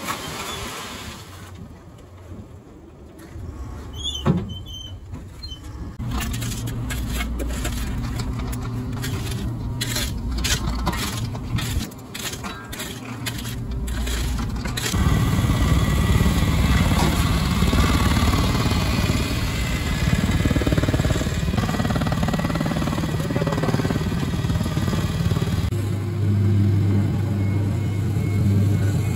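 Asphalt paving machinery running. It is quieter at first, with a sharp knock about four seconds in and a run of clicks and knocks. About halfway through it becomes much louder and steady.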